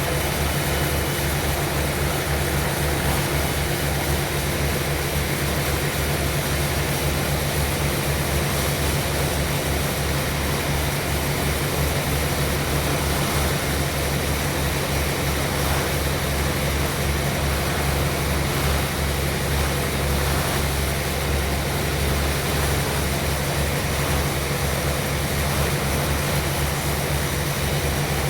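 Sawmill machinery running steadily: an engine drone with a fast low pulsing and a constant hiss above it, unchanging throughout.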